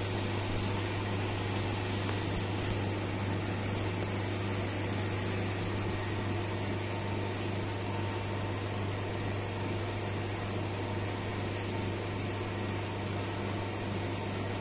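A steady low hum with a constant hiss over it, unchanging throughout; nothing else stands out.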